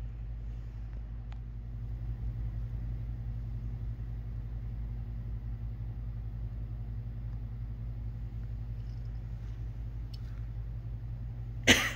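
Steady low hum of room noise, with one sharp knock near the end.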